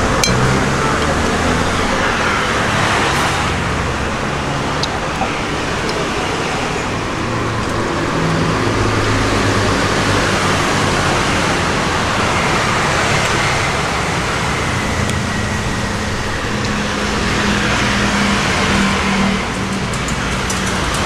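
Steady road traffic: motor vehicles passing one after another, their engine notes rising and falling as they go by over a constant rush of noise.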